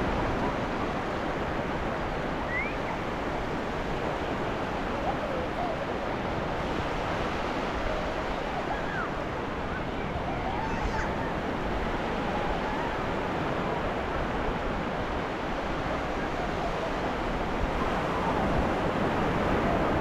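Ocean surf washing onto a beach: a steady rush of breaking waves that holds an even level throughout. A few faint, short chirping sounds sit over it.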